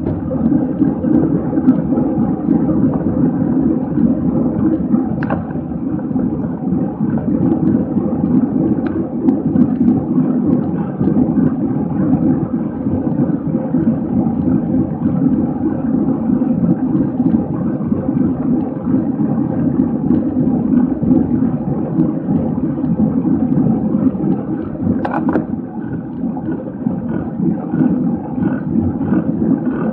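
Steady wind rush and rumble on the microphone of a camera riding along with a bicycle road race at speed, with two brief clicks, about five seconds in and near the end.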